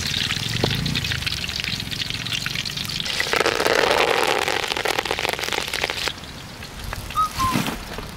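Chicken pakoda deep-frying in hot oil: a dense crackling sizzle that swells fuller about three seconds in, then stops abruptly around six seconds. Near the end there is a short high chirp and a low knock.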